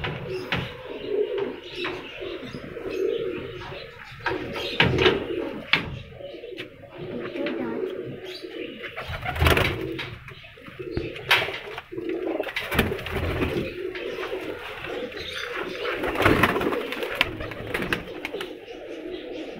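Domestic pigeons cooing steadily in a loft, with several short rustles and knocks along the way.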